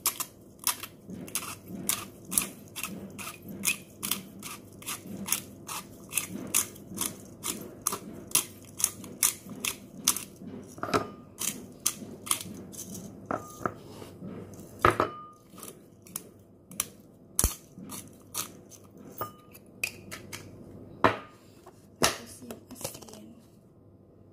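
Repeated sharp knocks of kitchen work, about two a second, a few of them with a short metallic ring; they thin out and stop near the end.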